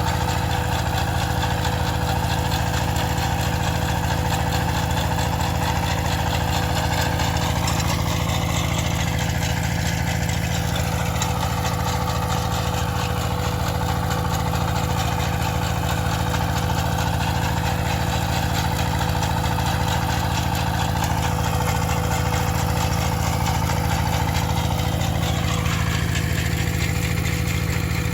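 Farm machine engine running steadily at a constant speed, a continuous low drone with a steady hum.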